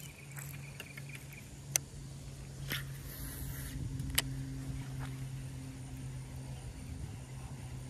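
A steady low engine hum sets in just after the start and carries on, with a few sharp single clicks from a baitcasting reel being handled.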